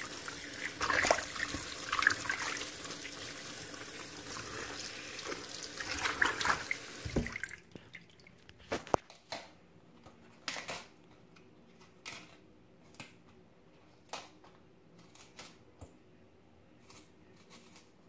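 A kitchen tap runs into a sink while chard leaves are rinsed under it, with a few louder splashes. The water stops abruptly about seven seconds in. A series of short, sharp snaps and clicks follows as the chard leaves are stripped and cut from their tough stems.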